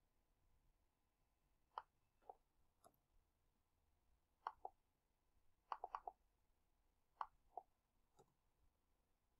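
Computer mouse clicks and keyboard key presses: about a dozen short, quiet clicks, irregularly spaced, some in quick pairs and a rapid cluster of four near the middle.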